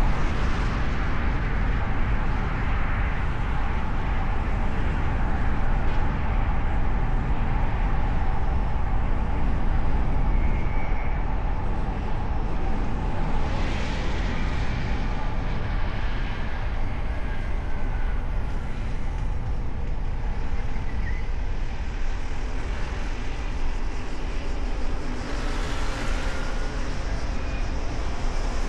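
A car driving on city streets, heard from a microphone mounted on its hood: a steady rumble of road and wind noise, with a brief swell of hissing noise about halfway and again near the end.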